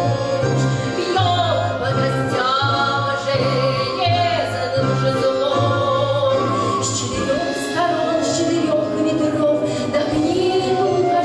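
A woman's solo voice sings long, gliding notes over orchestral accompaniment. Beneath it, a low bass pulses about twice a second for the first half, then holds steady.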